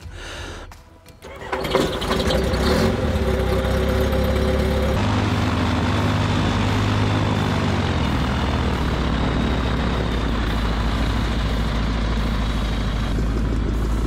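Rotax 912 iS 100 hp four-cylinder boxer engine of an ultralight trike being started: it cranks briefly, catches about two seconds in, and then runs steadily with the propeller turning.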